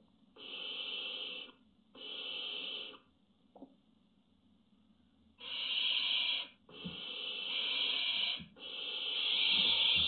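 Barn owl hissing: five drawn-out rasping hisses, a pause of about two seconds after the second, the last three longer and almost running together.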